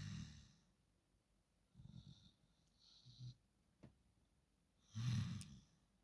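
Pig snoring in its sleep: four short snores at uneven gaps, the loudest at the start and about five seconds in.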